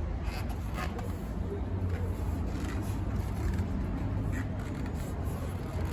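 Hands working a skinny folding road-bike tire bead onto the rim, rubber rubbing and scraping against the rim in a few short strokes, over a steady low rumble.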